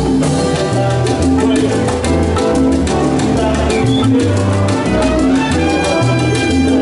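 Live salsa band playing: a bass line, held horn lines and a steady percussion pattern of congas, bongos and timbales.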